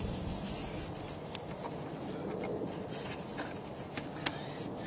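Stretch-fabric telescope cloak rustling and rubbing as it is pulled down over the tube's knobs by hand, with a few light ticks.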